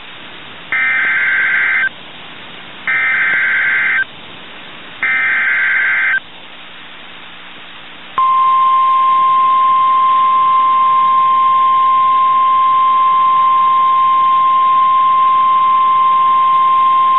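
NOAA Weather Radio alert signal: three short buzzy bursts of SAME data tones, each about a second long, then about eight seconds in the steady, high warning alarm tone that announces a new warning message.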